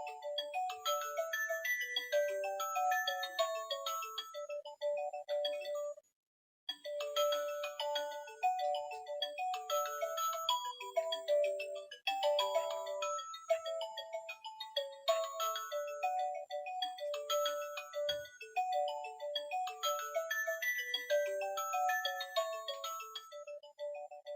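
Toy fridge playing a tinny electronic beep melody through its small speaker. The tune breaks off for a moment about six seconds in and then starts again. A faint knock comes near the end.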